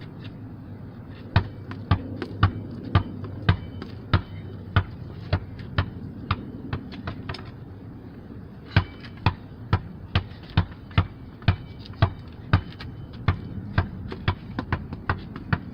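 A basketball being dribbled on a hard floor: a run of bounces about two a second that fades out, then a second run that quickens near the end.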